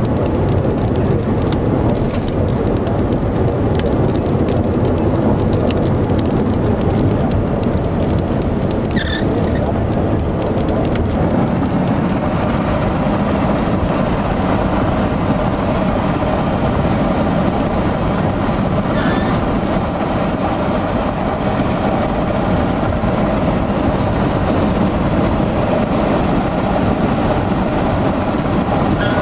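Steady road and wind noise of a moving car, heard from inside, with scattered light ticks through the first ten seconds or so.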